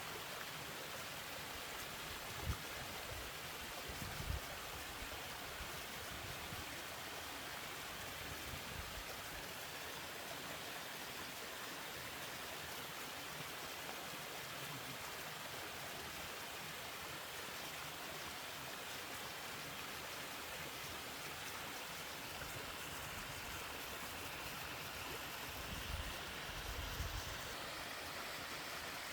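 Three-tier mountain waterfall, water pouring and splashing in a steady, even rush. A few brief low thumps break in about two and four seconds in and again near the end.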